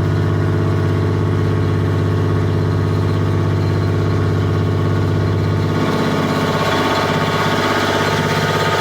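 Engine running steadily, a low hum with a constant drone. About six seconds in, its tone changes and the upper part gets louder.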